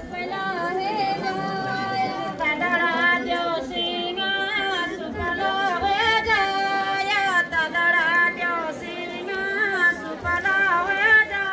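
Women singing a Garhwali jagar, a devotional folk song, in a flowing melody with long held notes.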